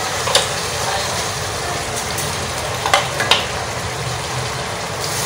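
Tomato-onion masala sizzling steadily in a wok as beef pieces go into it, with a few brief clicks.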